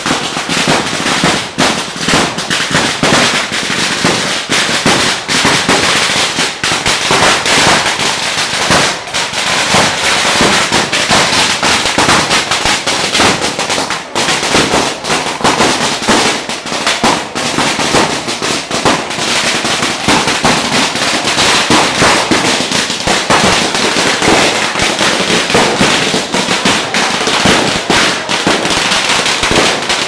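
A long string of Chinese firecrackers going off: a continuous, dense crackle of rapid bangs.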